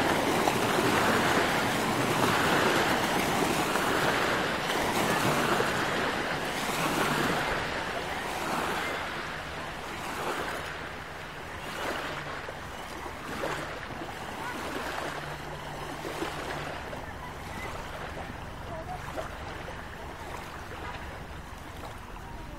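Small lake waves washing onto a stony shore, swelling and ebbing about once a second, louder in the first half and then settling, with wind on the microphone. A faint low hum comes in for a few seconds midway.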